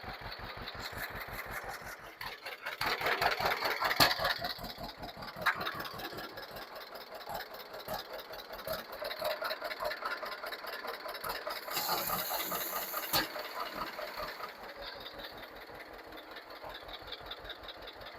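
Vintage John Deere 50's two-cylinder engine idling with an even popping beat. A louder rushing noise comes in about three seconds in, and a brief hiss around twelve seconds.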